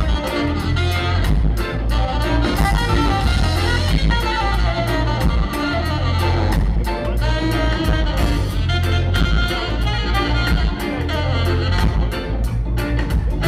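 Live ska band playing an instrumental stretch: saxophone and brass horn lines over a steady beat from electric bass, drum kit and keyboard.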